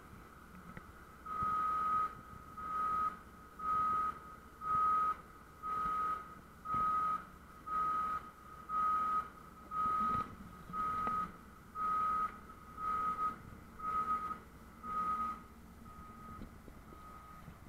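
Reversing-type warning beeper on port machinery, sounding a steady single-pitched beep about once a second, some fifteen times, fading near the end.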